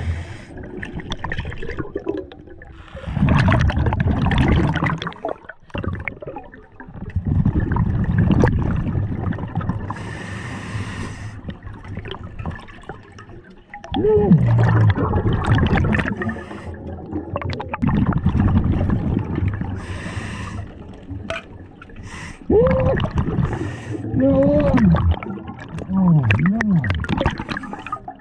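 Scuba diver breathing through a regulator underwater: long bubbling exhalations with a low rumble, some carrying a wavering tone, and a hissing inhale about ten seconds in and again about twenty seconds in.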